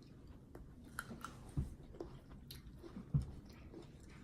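A child chewing dragon fruit close to the microphone: faint wet mouth clicks and smacks, with two soft low thumps about a second and a half apart.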